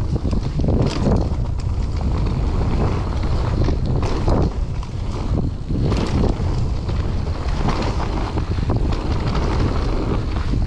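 Wind buffeting the camera microphone and tyres rolling over dirt as an electric mountain bike rides fast downhill, with sharp clattering knocks from bumps about one, four and six seconds in.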